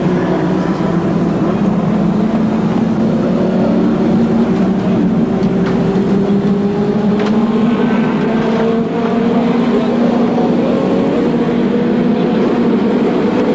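A pack of racing cars' engines running together in a steady drone, their pitch climbing slowly as the field accelerates away from the rolling start.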